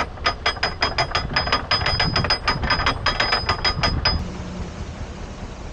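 Canal lock paddle gear being wound up with a windlass: the pawl clicks over the ratchet teeth about five or six times a second with a metallic ring, and stops about four seconds in.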